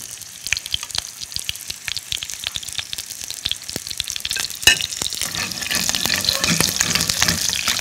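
Steamed dumplings pan-frying in oil in a nonstick frying pan as they are turned to brown the other side: a steady sizzle full of small crackling pops, with one sharp click a little over halfway through. The sizzle grows louder in the second half.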